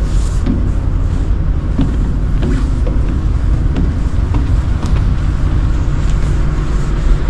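Steady low engine rumble aboard a Hurtigruten coastal ship, with a few light clicks over it.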